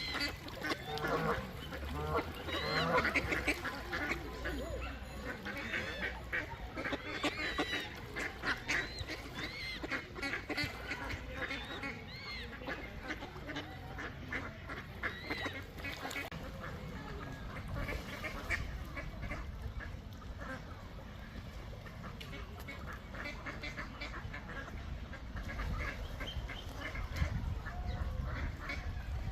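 A large flock of mallard ducks quacking, many calls overlapping. The calling is densest in the first half and thins out about halfway through.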